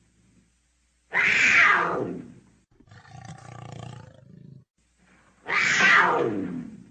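Leopard calling: two loud, drawn-out calls, each about a second and a half long and falling in pitch, one about a second in and one near the end, with a fainter, steadier call between them.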